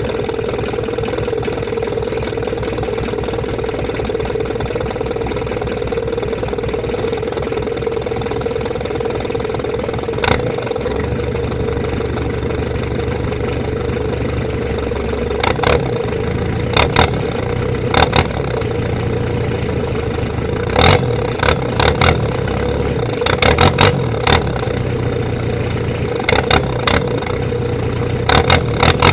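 Mitsubishi 4D56 2.5-litre four-cylinder diesel idling steadily through a straight-piped exhaust with no muffler, only a jet-style muffler tip. From about a third of the way in, it gives a series of short, loud sharp bursts, bunched more closely near the end.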